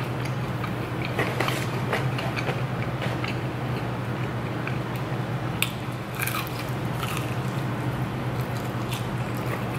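Close-miked chewing and biting of fried chicken: moist mouth smacks and crunches of breading, in scattered short clicks. A steady low hum runs underneath.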